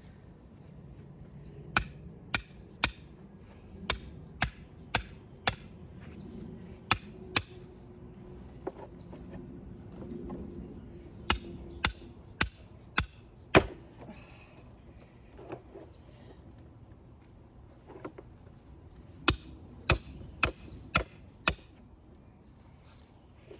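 Hammer blows on curved rebar J-hook anchors, driving them into the soil. The sharp, ringing strikes come in runs of two to five, about two a second, with pauses between the runs.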